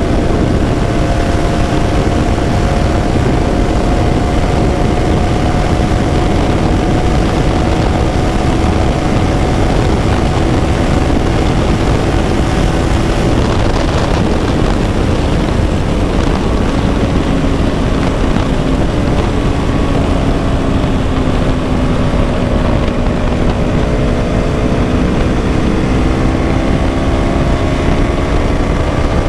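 KTM Duke 200's single-cylinder four-stroke engine running under way, over a loud steady rush of noise. The engine note holds steady at first, sinks in pitch past the middle as the bike eases off, then climbs again near the end.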